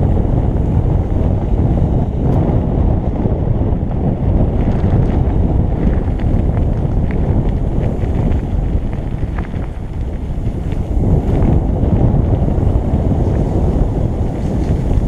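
Wind buffeting a helmet-mounted camera's microphone while a mountain bike rolls fast down a gravel track, with a steady low rumble from the tyres and occasional small clicks of grit and stones.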